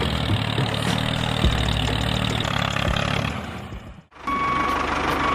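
Engine sound of a DIY mini tractor running steadily under load, a low drone with a rattly hiss over it. It cuts out briefly about four seconds in and comes back with a thin, steady whine.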